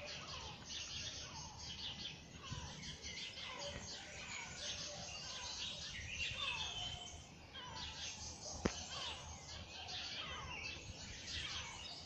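Morning chorus of many small songbirds chirping and twittering together, with repeated short falling whistled notes. A single sharp click about two-thirds of the way through.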